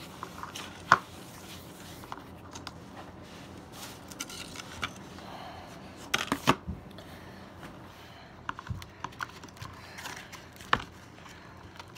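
Handling noises from slime-making: scattered light clicks and taps of plastic cups, bowl and plate being handled, with a sharp tap about a second in and a cluster of them about six seconds in.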